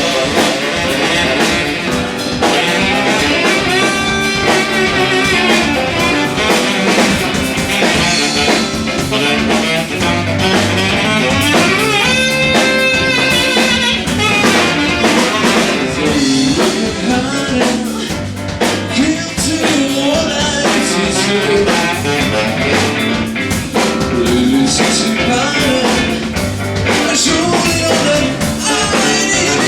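A live band playing with drum kit and guitar, the music running on without a break.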